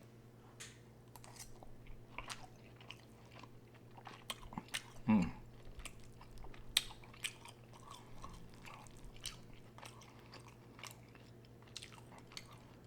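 Close-miked mukbang eating: irregular wet chewing and lip-smacking of a mouth working through a forkful of food. A short hummed 'mm' comes about five seconds in.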